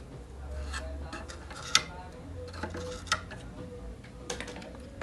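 Scattered light clicks and taps of tools and small parts being handled on an electronics repair bench, the sharpest about two seconds in, over a low steady hum.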